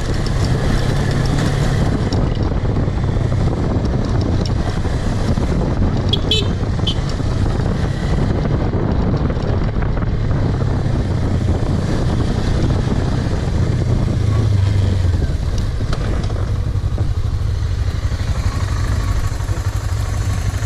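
Suzuki V-Strom 250 motorcycle's twin-cylinder engine running steadily under way on an off-road track, with a broad rush of riding noise. The engine note swells briefly about two-thirds of the way through.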